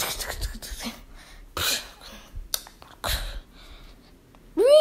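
A person's short breathy vocal noises, three bursts about a second and a half apart, then right at the end a hummed note slides up and holds.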